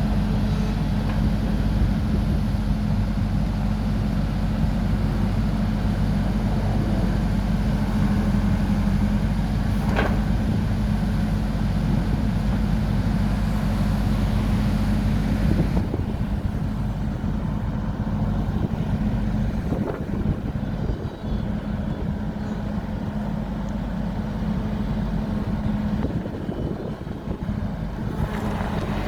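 Wecan GM 1605 skid steer loader's engine running at a steady speed, with a couple of brief clanks. About halfway through, the higher-pitched noise drops away and the engine hum carries on.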